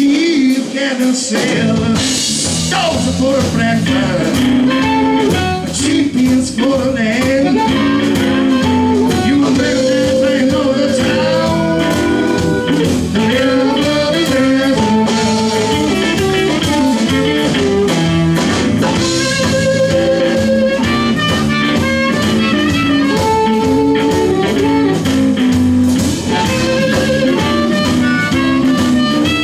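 Live blues band playing: an amplified harmonica, cupped to a hand-held microphone, plays held, wavering lead lines over electric guitar, electric bass and drum kit.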